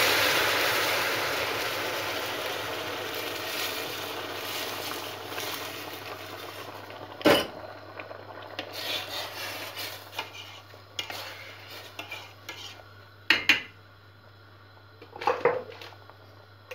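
Hot water poured into a stainless steel pot of vermicelli toasted in oil and tomato paste hisses and sizzles, the sizzle dying away over the first several seconds. Then a spoon stirs the soup and knocks against the pot a few times, with a sharp clink about halfway through and more near the end.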